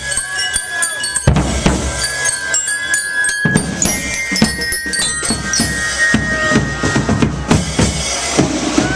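Band drums beating, bass and snare, with a few held high notes sounding over the hits.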